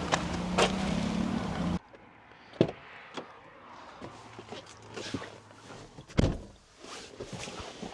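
A vehicle engine running steadily, which cuts off suddenly about two seconds in. After that come quiet scattered clicks and knocks, with a louder knock near the middle and another near the end.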